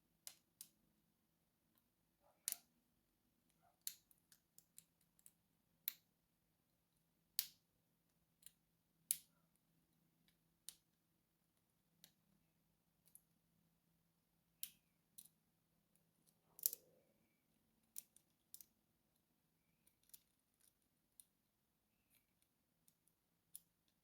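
Scattered small metal clicks, a few dozen at irregular intervals, from a hook pick and tension wrench working the pins inside a Master Lock lockout-tagout padlock.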